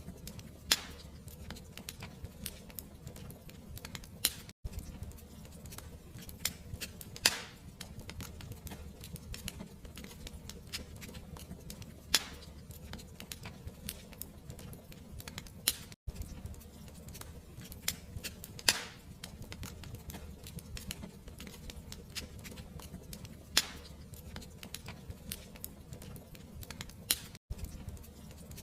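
Fire crackling, with sharp pops every few seconds over a low, steady rumble.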